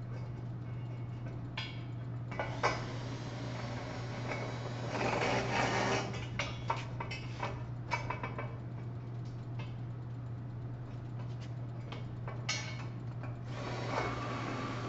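Bolts and tools being handled while fastening a hydraulic cylinder to a steel I-beam: scattered metal clicks and knocks, with a rasping stretch about five seconds in, over a steady low hum.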